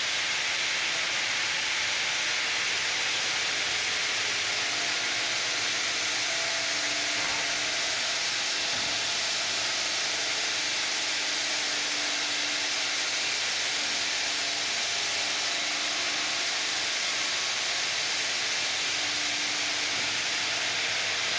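Ring-saw granite block cutting machine running and cutting through granite, a steady, even hiss of stone grinding with no letup.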